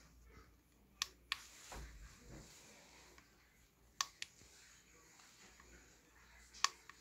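Small tactile push button on a breadboard clicked three times, each press giving a sharp click down and a second click on release about a quarter second later. Each press toggles the push-on/push-off latching circuit.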